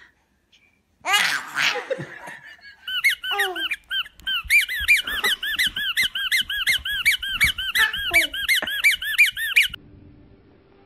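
Rubber giraffe squeeze toy squeaking over and over, about three quick rising-and-falling squeaks a second, with a baby laughing. The squeaking starts about three seconds in and stops suddenly near the end.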